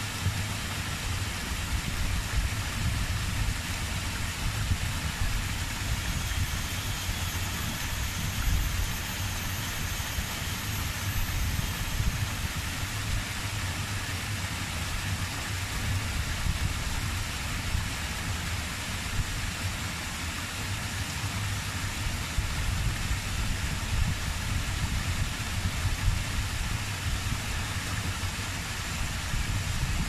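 Small rocky stream tumbling over boulders into a pool: a steady rush of flowing water with a low rumble.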